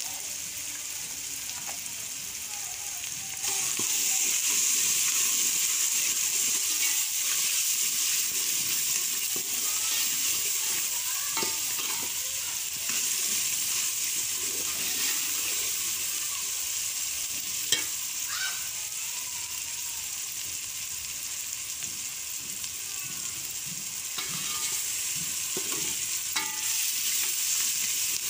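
Chopped onions, tomatoes and green chillies sizzling as they fry in an aluminium pot, stirred with a steel ladle that scrapes and clinks against the pot. The sizzle gets louder about three and a half seconds in, and there is one sharp clink a little past the middle.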